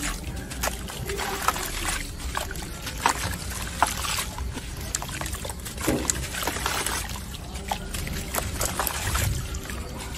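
Hands crumbling and rubbing a soft, gritty sand-cement block in a tub of water: wet grit crunching and breaking off in many small irregular crackles, with water sloshing and trickling.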